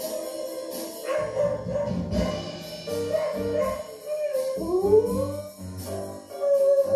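A dog howling along to music: one howl rises in pitch a little after halfway, and another, held longer, starts near the end.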